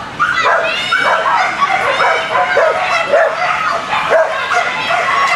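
Several flyball dogs barking and yipping at once in a dense, overlapping din of short high-pitched yips.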